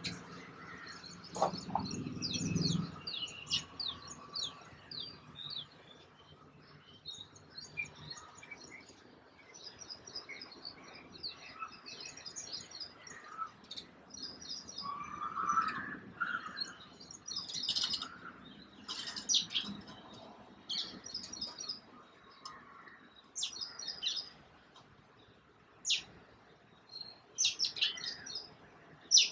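House sparrows chirping: many short, high chirps and quick runs of chirps, off and on throughout, with a brief low rumble about two seconds in.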